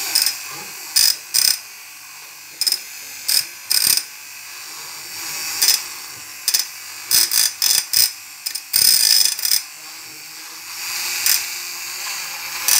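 Vintage Tony'C Super Rotonda handheld frappé mixer whirring steadily as its whisk spins in a glass of frothed coffee, with frequent sharp clicks and rattles, louder than the whirring, as the spinning shaft knocks against the glass.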